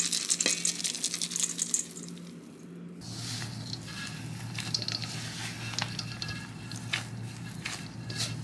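Chopped nuts pattering and crackling into a stainless steel mixing bowl for the first two seconds or so. After that, gloved hands squeeze and knead crumbly dough in the bowl with soft squishing and occasional clicks.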